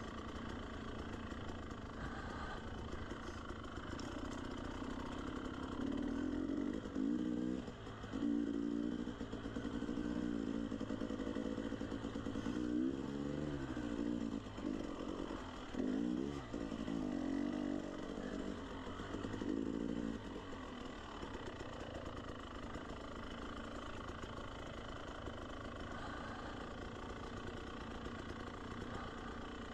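Dirt bike engine running under way, the revs rising and falling in repeated short bursts through the middle stretch, then running steadily and more quietly toward the end.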